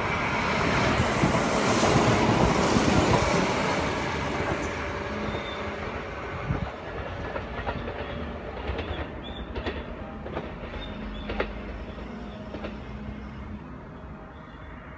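Kintetsu 'Kagirohi' charter express train running past, loudest about two seconds in and then fading steadily as it moves away. The wheels click over rail joints as it recedes.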